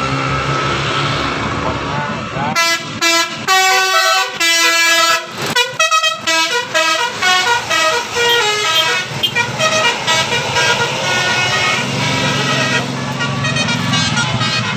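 Bus telolet horn, a multi-tone musical horn, playing a fast melody of stepped notes that starts about two and a half seconds in and carries on in shorter phrases, over the steady hum of the bus and traffic.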